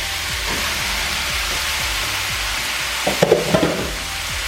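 Diced vegetables (onion, zucchini, green pepper, mushrooms) frying in a deep pan, a steady sizzle, with background music underneath. A brief louder burst of sound comes about three seconds in.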